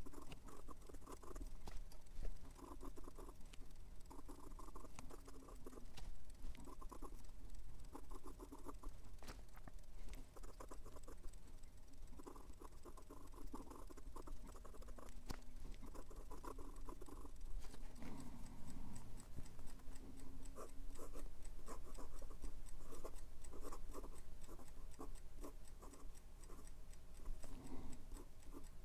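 Jinhao x159 fountain pen's fine steel nib writing cursive on lined notebook paper: a soft scratching in short runs, word by word, with brief pauses and small ticks between them.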